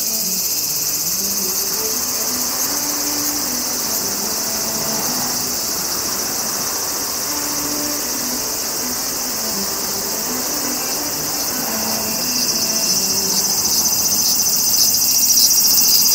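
A steady, high-pitched chorus of summer-evening insects, growing louder in the last few seconds.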